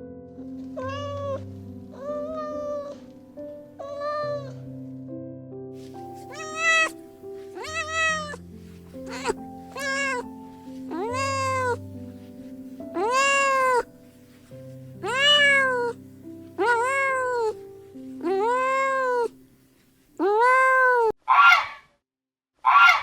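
A cat meowing again and again, about a dozen rising-and-falling meows, the first few short and fainter and the later ones longer and louder, over soft piano music. The music stops near the end, and two short harsh calls of a different animal follow.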